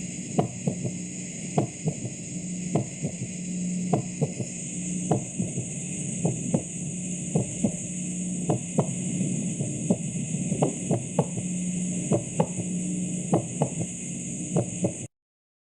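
Recorded heart sounds: sharp beats, about two a second in an uneven rhythm, over a steady hum and hiss. The recording cuts off suddenly near the end.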